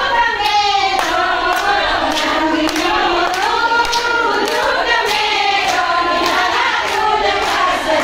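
A group of women singing a song together, clapping their hands to a steady beat of about two claps a second.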